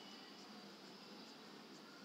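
Near silence: faint steady room tone and hiss.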